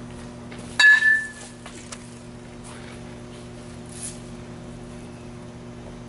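A youth baseball bat hitting a pitched ball once, about a second in: a sharp ping with a brief ringing tone.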